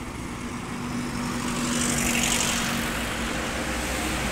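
A bus driving past: engine and tyre noise swell to a peak about two seconds in and then ease off, over a steady low hum.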